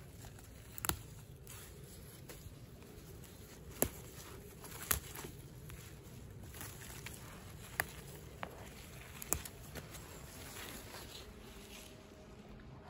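Wild greens being picked by hand on a forest floor: scattered sharp snaps of stems breaking, about five in all at irregular gaps, over soft rustling of leaves and dry leaf litter.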